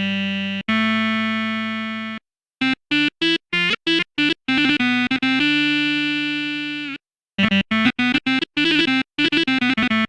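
Sampled brass instrument from an SF2 soundfont, played from a keyboard: held notes that slowly fade, broken up by quick runs of short staccato notes, with a couple of brief silent gaps.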